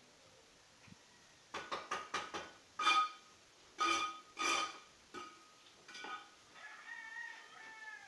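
Chicken calling: a few short loud squawks in the middle, then a longer wavering call near the end. A run of quick sharp taps comes just before the squawks.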